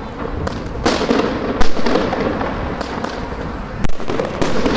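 Aerial fireworks going off close by: four sharp bangs of bursting shells, the loudest about a second and a half in, over a continuous rushing noise.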